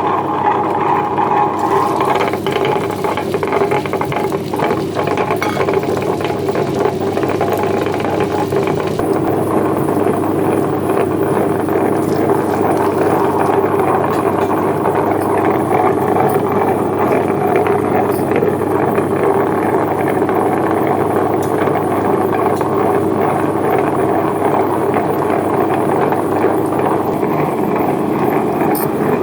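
A small motor running steadily at constant speed, switched on just before.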